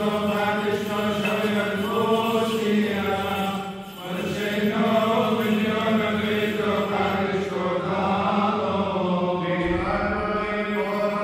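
Men's voices chanting a Syriac Orthodox liturgical hymn, a moving melody over a steady held low note, with a brief breath pause about four seconds in.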